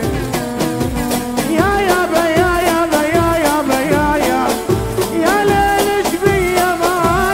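An Arabic song played by a live band: a gliding melody line over a steady percussion beat.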